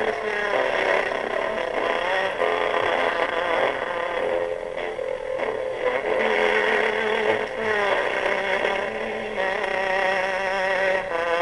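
A 78 rpm record playing on an acoustic gramophone through its soundbox and steel needle. The music is a melody with a wavering vibrato, heard over steady surface hiss.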